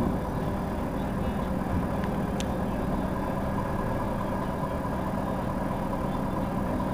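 Heuliez GX 327 city bus engine idling steadily while the bus stands at the stop. A single brief high tick comes about two and a half seconds in.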